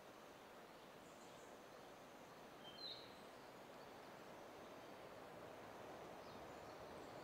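Near silence: faint outdoor ambience with one short bird chirp about three seconds in.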